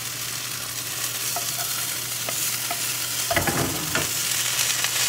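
Shredded hash browns sizzling in a nonstick frying pan, with a wooden spatula scraping and tapping in the pan as they are stirred and broken up. There is a louder clatter about three and a half seconds in.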